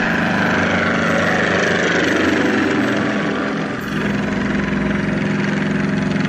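Helicopter flying overhead, its engine and rotor running steadily. The sound shifts slightly about four seconds in.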